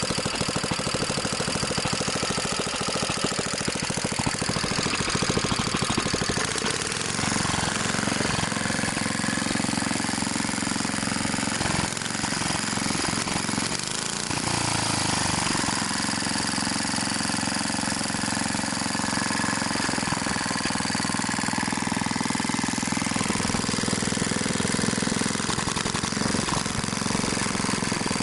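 BSA 220cc governed single-cylinder engine running steadily at speed, a rapid even firing beat from an open exhaust with no muffler.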